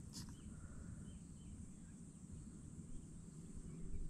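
Outdoor ambience on open water: a low steady rumble, a constant high-pitched hiss, and a few faint, scattered bird chirps, one sharper chirp just after the start.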